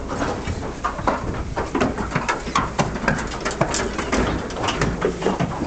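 Cattle shifting about in a double-decker livestock road-train trailer: many irregular knocks and clatters of hooves and bodies against the decks and rails, with low animal calls among them.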